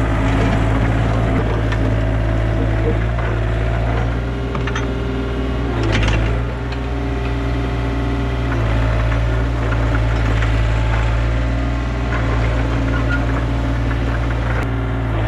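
Yanmar B37 mini excavator's diesel engine running steadily under load as the machine pushes soil and leaves with its dozer blade, with a short surge about six seconds in.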